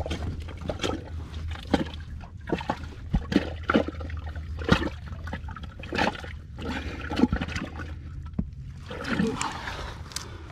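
Water trickling and splashing, with irregular sharp clicks and small splashes, over a steady low rumble.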